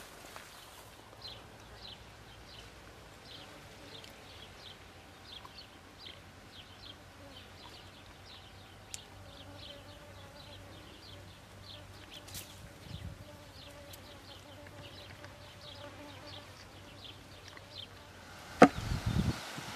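Faint, short high chirps from a small wild creature, repeating about two to three times a second. A single loud knock comes near the end.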